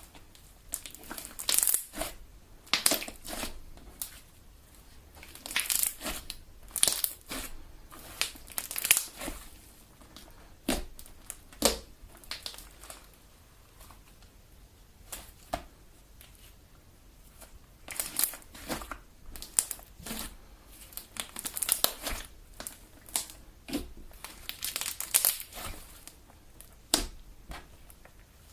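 Homemade Elmer's Galaxy slime being kneaded and squeezed by hand, giving crackly, popping squelches in bunches with short pauses between them.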